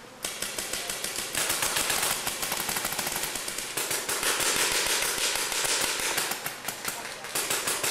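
Paintball markers firing in a rapid, dense stream of sharp pops that starts abruptly just after the beginning and keeps going without a break.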